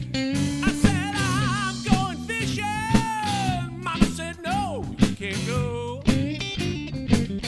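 Rock band playing a song with no words in this stretch: electric guitar, bass guitar and drums, with a lead line of wavering, bending notes over a steady beat.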